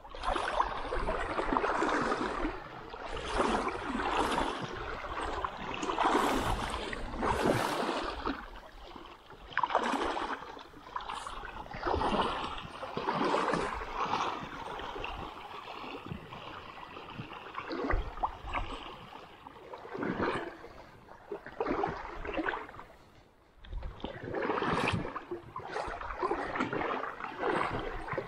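Someone wading in a shallow stream: water sloshes and splashes in irregular surges every second or two over the running water.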